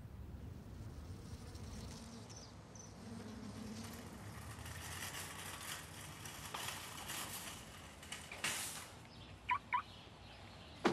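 Outdoor ambience with a skateboard rolling on asphalt: a rising rush of wheel noise, then a short loud burst about eight and a half seconds in, followed by two quick high squeaks about a second later.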